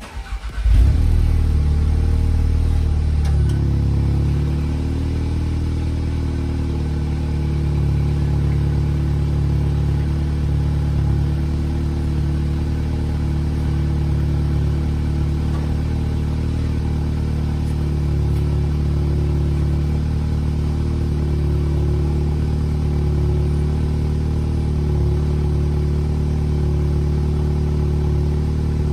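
VW Golf R's turbocharged 2.0-litre four-cylinder, breathing through an AWE SwitchPath stainless catback exhaust, starts from cold less than a second in with a brief flare. It then runs at a steady fast idle that eases slightly after a few seconds.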